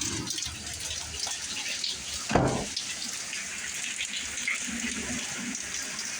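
Heavy rain pouring down in a steady hiss, with big raindrops splattering. A single short, low thump about two seconds in is the loudest sound.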